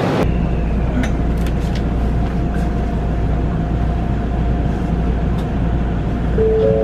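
Steady low rumble of a train carriage in motion, heard from inside, with a few light clicks. Near the end several held tones at different pitches come in one after another.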